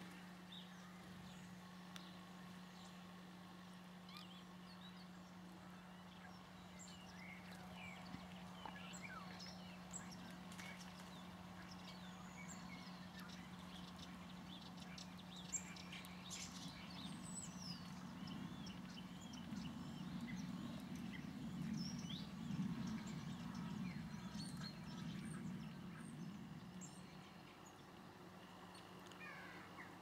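Tits calling with many scattered short, high chirps and twitters over a steady low hum. A low rumble swells about twenty seconds in and fades a few seconds later.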